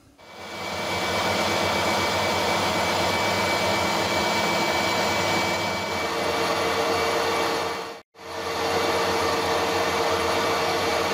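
Harrison 140 lathe running under power, taking a turning cut along a bar: a steady machine whir with a faint whine through it. The sound breaks off for an instant about eight seconds in, then carries on.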